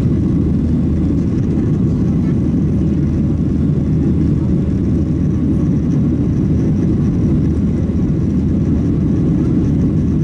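Boeing 737-700's CFM56-7B jet engines and airflow heard inside the cabin, a steady low roar at climb power just after takeoff, with a faint steady high whine above it.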